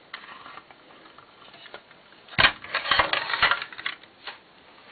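Clicks and clatter of hard plastic and metal parts of a small computer subwoofer being handled, with a quick burst of sharp knocks about halfway through that lasts about a second and a half.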